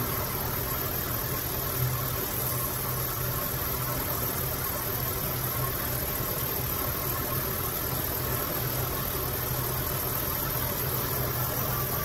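2004 Dodge Ram 1500 pickup engine idling steadily, heard from the open engine bay.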